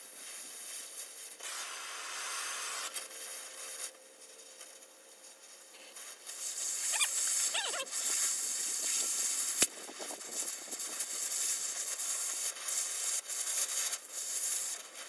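Oxy-fuel cutting torch hissing against the steel of a trailer axle, throwing sparks; the hiss grows much louder about six and a half seconds in. A sharp click a little before ten seconds.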